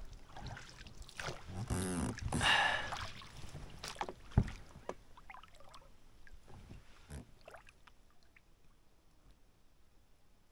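Small rowboat being handled on the water: scattered knocks against the hull and sloshing, the loudest a single sharp knock about four seconds in, then dying away to quiet.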